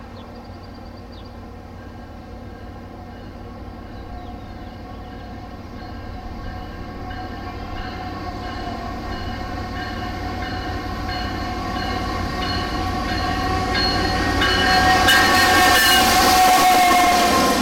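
Canadian National diesel freight locomotive approaching and passing, sounding its air horn, which grows steadily louder and drops in pitch as it goes by. Rail clatter and engine noise join in as the locomotive passes close.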